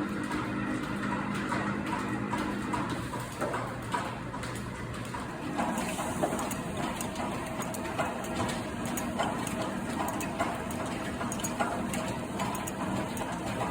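Woodward & Powell metal planer running, with a steady machine hum and scattered clicks and knocks. The hum drops away about three seconds in and comes back a couple of seconds later.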